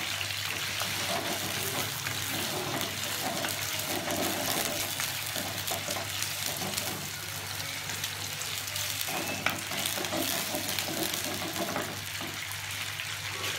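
Chicken pieces sizzling in hot oil in a nonstick frying pan: a steady hiss, with the occasional scrape and tap of a wooden spatula stirring them.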